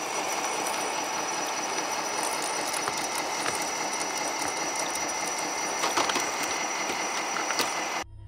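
Electric RC truck's brushed motors and gearboxes running with a thin steady whine, its rubber tracks grinding and clattering over ice, with a few sharp clicks near the end; the sound cuts off suddenly.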